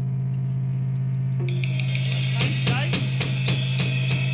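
A band starting a song: a low note is held steadily, then a drum kit comes in about one and a half seconds in. Cymbal wash comes first, then about two and a half seconds in the kit settles into a steady beat of kick, snare and hi-hat.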